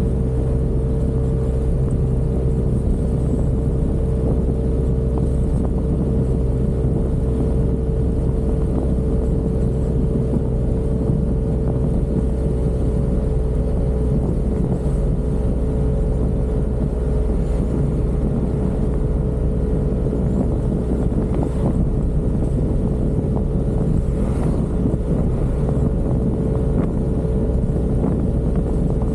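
Yamaha Aerox 155 scooter's single-cylinder engine running at a steady cruise, a constant whine at one pitch over a low rumble, with wind and road noise.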